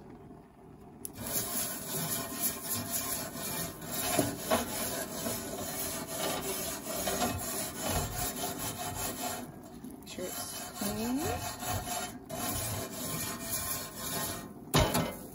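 A wire grill brush scraping back and forth over hot grill grates in quick repeated strokes. It starts about a second in, with two brief pauses near the end.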